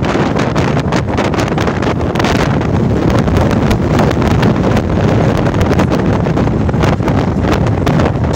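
Wind buffeting the microphone of a phone held out on a moving vehicle, with the rush of travel and road noise underneath; loud and steady with constant gusty flutter.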